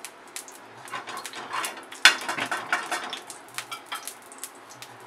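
A metal spoon scraping and clinking on a tawa (flat griddle) as a spoonful of oil is spread over it, with a series of light knocks and a loud sharp clatter about two seconds in.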